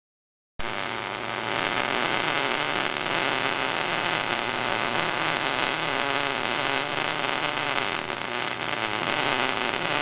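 A steady hissing noise that cuts in abruptly about half a second in and holds at an even level.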